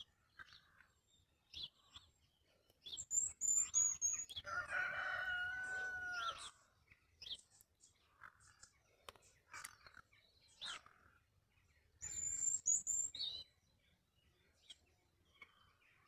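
A rooster crowing once, a long call of about two seconds near the middle. Small birds chirp in short high bursts just before it and again near the end.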